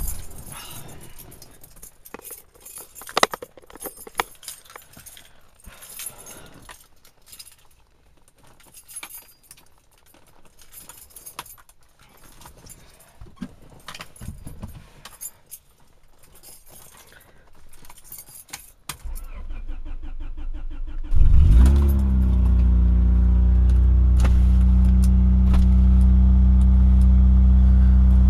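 Car keys jangle for a while. A Honda Prelude's four-cylinder engine then cranks briefly, catches with a short flare about 21 seconds in, and settles into a steady idle with a bad exhaust leak.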